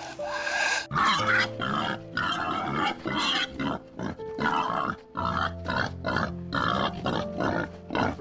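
Soft background music, then from about a second in a group of young boars grunting: a quick run of short, loud calls, about two a second, over the music.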